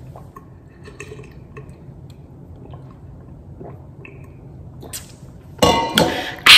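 Drinking from a stainless steel tumbler: faint swallows and liquid sounds with small clicks. Near the end come a couple of loud sudden sounds and a loud breathy gasp as the drink finishes.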